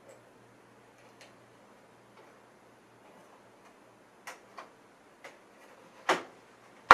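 Light clicks and knocks of an S-100 Z80 circuit card being handled and seated into the IMSAI 8080's card cage, a few faint ones spread out, then two sharper knocks near the end, the second the loudest.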